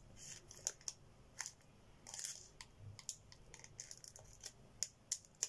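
Scissors snipping across the top of a foil trading-card booster pack, a series of short, sharp snips at irregular intervals, with the wrapper crinkling now and then.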